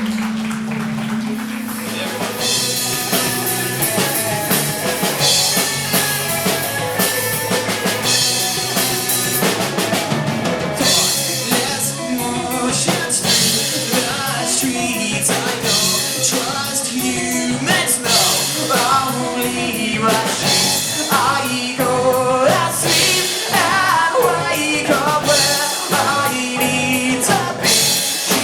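Live band playing loud rock music through an effects-heavy guitar rig. It opens on a single held note, and the drum kit and full band come in about two seconds in, with a voice singing.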